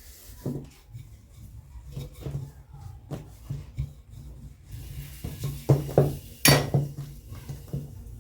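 Rolling stick working a ball of chapati dough on a board: scattered rubbing and light knocks, with one sharp knock about six and a half seconds in.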